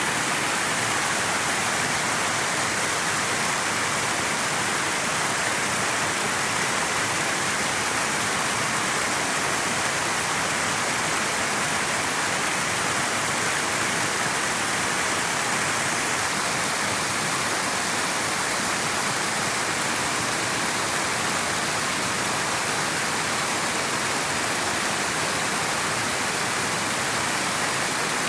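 River water flowing, a steady rushing with no breaks.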